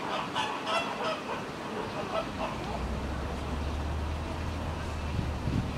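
Repeated honking calls of birds, coming quickly one after another and dying away after about two seconds, then a low steady hum.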